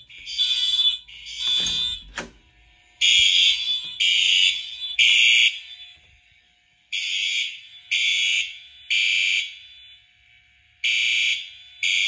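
Fire alarm horn strobes, deliberately left unsynchronised, sounding the temporal-three evacuation pattern: groups of three short, shrill blasts about a second apart, with each group repeating every four seconds or so. A couple of sharp clicks come about two seconds in.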